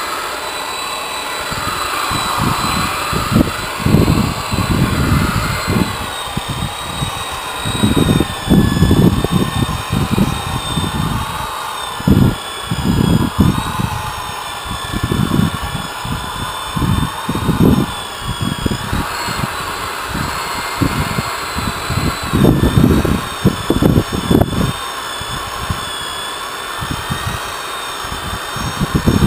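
Corded electric rotary polisher running steadily as its buffing pad is worked over a boat's painted hull, with a high whine that drifts slowly up and down in pitch as the load on the pad changes. Irregular low rumbles swell and fade throughout.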